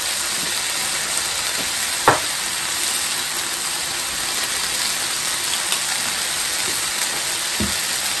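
Diced eggplant and chicken cartilage sizzling in a frying pan over high heat, a steady hiss. One sharp knock about two seconds in.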